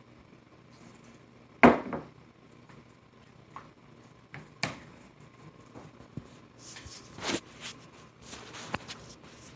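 Scattered knocks and clicks of containers and a bowl being handled on a table, the loudest about a second and a half in, with a few lighter taps and short rustles later.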